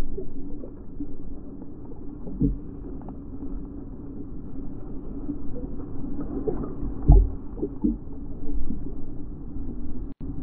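Ocean water sloshing around a camera held at the surface, with a low rumble of surf and a few dull knocks, the strongest about seven seconds in.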